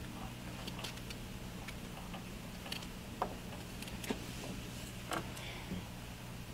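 Quiet room tone: a steady low hum with scattered faint short clicks.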